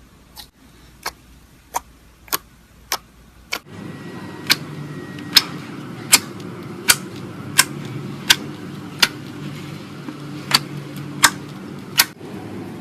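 Slime being pressed and poked, giving sharp popping clicks about every two-thirds of a second. A steady low hum comes in under them about four seconds in.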